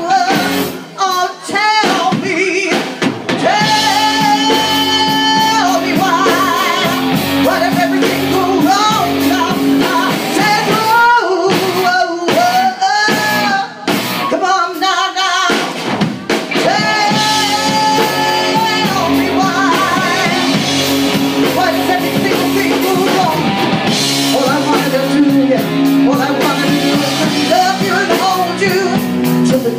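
Live rock band playing: a woman sings long, held notes with wide vibrato over electric guitar, bass guitar and drums. The band drops out briefly a few times near the middle.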